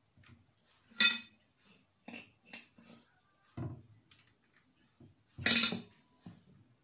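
Spoon clinking against a glass bowl while a crunchy almond mixture is scooped into a silicone mould: two sharp clinks, about a second in and near the end, with lighter taps and scrapes between.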